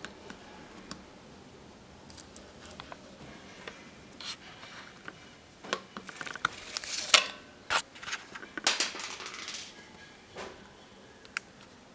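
Handling noise: scattered clicks and taps with short scraping rubs, thickest in the middle few seconds.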